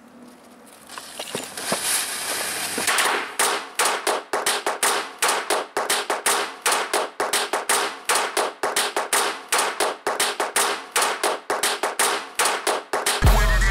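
A string of firecrackers going off: a hiss builds for the first few seconds, then a long run of rapid sharp bangs, several a second, for about ten seconds. Music with a heavy beat comes in near the end.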